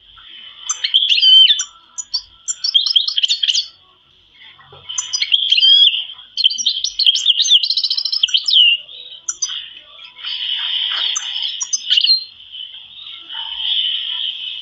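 Canaries singing: long runs of rapid chirps and trills over a near-continuous high trill, with brief pauses near the start and about four seconds in.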